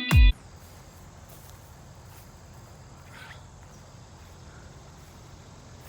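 Electronic music with a heavy, regular kick drum cuts off abruptly right at the start. Faint, steady outdoor ambience with crickets follows, and there is one brief faint sound about three seconds in.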